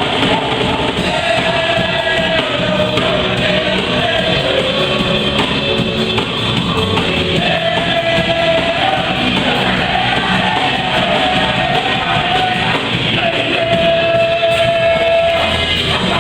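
A live worship band playing a song with sung vocals, the singers holding long notes over guitar and a full band mix.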